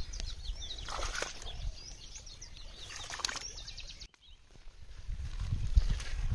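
Small birds chirping rapidly, with two splashes of water as a fishing net is pulled up out of a pond. After an abrupt cut about four seconds in, footsteps through grass come in.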